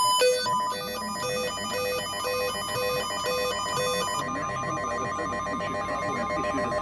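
Emergency weather alert tones: a rapid, repeating electronic beep that stops about four seconds in, leaving a single steady high tone sounding.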